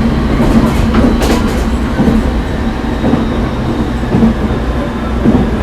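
JR East 209-series 500-subseries electric train running, heard inside a motor car: a steady traction-motor and running hum with wheels clattering over the rails.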